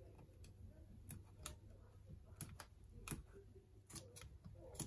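Faint, irregular small clicks and taps, about eight of them, as hands pry at a laptop's CMOS coin-cell battery that is stuck down with adhesive tape.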